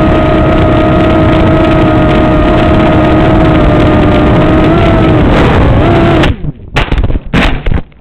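Parrot MiniDrone's four small electric motors and propellers whining steadily, close up. The pitch sags slightly just before the motors cut out about six seconds in. A few sharp knocks follow as the drone crashes and tumbles to a stop.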